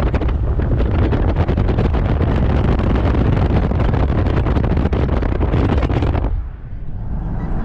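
Wind buffeting the microphone from a moving car, over the car's road rumble; the wind noise cuts off suddenly about six seconds in, leaving a quieter low rumble.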